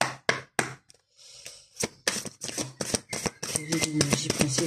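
A deck of oracle cards being shuffled by hand: a few separate card slaps at first, then a quick run of dense card clicks from about two seconds in. A low hum sounds underneath near the end.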